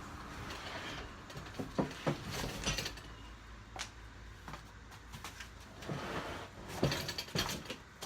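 Cardboard packaging being handled and pulled apart while a boxed metal part is worked out of its box: rustling and scraping with scattered knocks and clicks, the busiest stretch a few seconds before the end.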